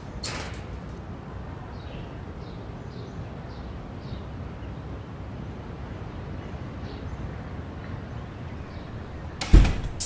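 Outdoor street ambience: a steady low rumble of distant traffic with faint short bird chirps, a click just after the start, and a heavy thump near the end.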